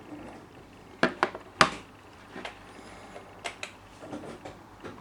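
Handling noise: a few sharp clicks and knocks, loudest in a cluster of three about a second in, then scattered fainter taps, typical of phones being picked up and their screens or buttons tapped.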